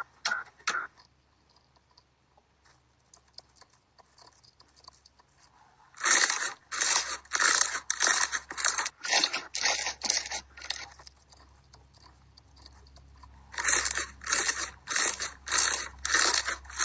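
Slime being squeezed and pressed by hand, giving quick bunches of sharp crackles and pops about twice a second. They are loudest from about six seconds in, ease off for a couple of seconds, then start again near the end.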